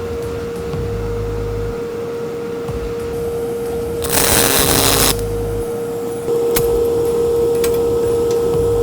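Metal-cutting bandsaw running with a steady hum while cutting steel stock. A loud hiss lasts about a second, around four seconds in.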